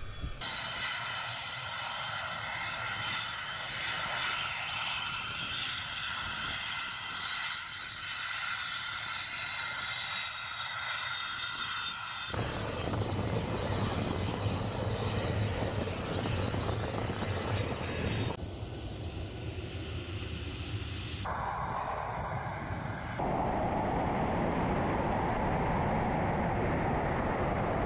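Sukhoi Su-25 ground attack jet's twin turbojet engines. First a high multi-toned turbine whine that slowly falls in pitch, then after abrupt cuts a deeper steady engine rumble, and near the end a steady loud rush of engine and airflow.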